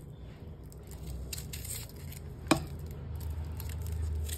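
Knife cutting a red onion held in the hand: faint cutting clicks, with one sharp click about halfway through, over a low steady hum.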